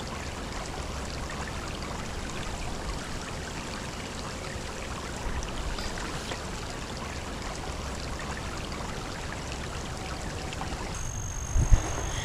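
Shallow creek water running over rocks: a steady, even rush and trickle. Near the end it cuts to a steady high-pitched tone, with a single thump.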